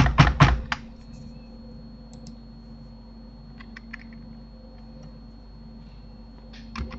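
Computer keyboard being typed on: a quick run of loud keystrokes in the first second, then a few scattered faint clicks, over a steady low electrical hum.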